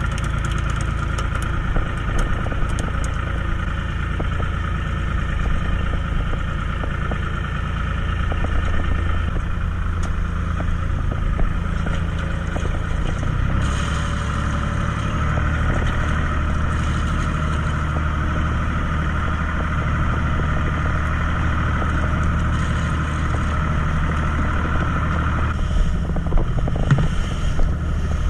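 Small fishing boat's engine running steadily with a constant drone, its note shifting slightly about halfway through. Light knocks and clatters sound near the end.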